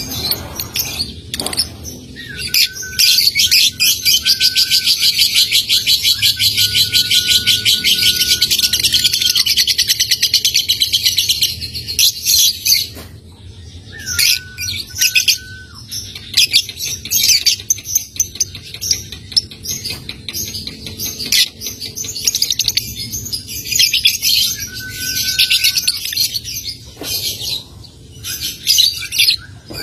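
Young lovebird chattering: a long, very fast rattling trill of about ten seconds (the 'ngekek' song), then shorter bursts of rapid ticking chatter ('ngetik') for the rest. A thin, level whistle sounds briefly several times beneath it.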